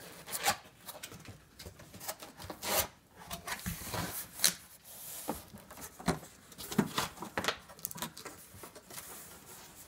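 Cardboard packaging being handled: a printed box sleeve slid off a cardboard box and its flaps opened, making irregular scraping, rubbing and a few sharp knocks.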